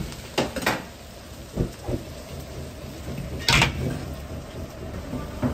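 Metal ladle knocking and scraping against a carbon-steel wok as fried rice is stir-fried and tossed, a few sharp clanks, the loudest about three and a half seconds in, over the steady low roar of the gas wok burner.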